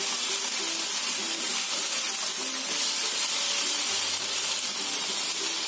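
Tofu and chicken wings sizzling steadily in a hot frying pan as they are stirred with a spatula.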